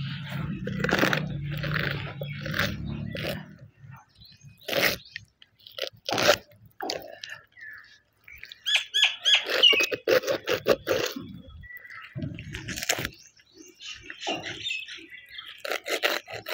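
Small knife cutting a whole raw chicken on a wooden chopping stump: scattered clicks and crunches as the blade works through skin and joints and taps the wood. About halfway through there is a short run of bird calls.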